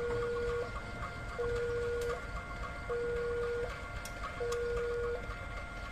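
Railway level-crossing warning alarm sounding while the crossing is closed for shunting: an electronic two-tone signal alternating a lower and a higher tone, each held about three quarters of a second, repeating steadily.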